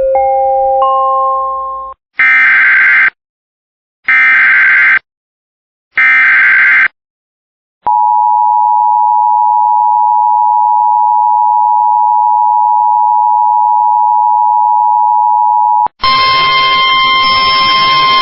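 Emergency Alert System broadcast starting a National Weather Service flash flood warning. A short rising run of tones leads into three one-second bursts of SAME header data about a second apart, then the steady two-tone attention signal for about eight seconds. A buzzy tone follows near the end.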